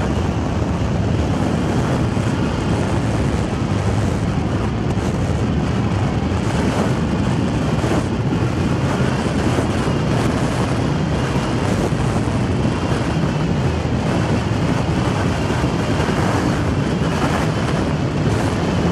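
Strong wind buffeting the microphone: a steady, heavy rushing noise that is strongest in the low end and flutters rapidly.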